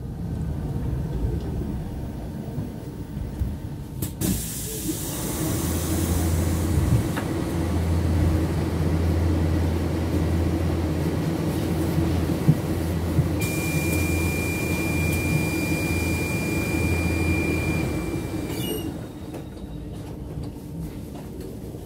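Commuter electric train at the platform beside the bus stop. After a click about four seconds in, a steady hiss and low hum set in. A steady high tone joins them in the later part, and all of it drops off with a few clicks near the end.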